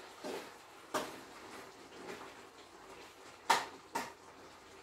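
Cookware knocking at the stove: a couple of light clinks, then two sharper knocks about three and a half and four seconds in, as pots and utensils are handled.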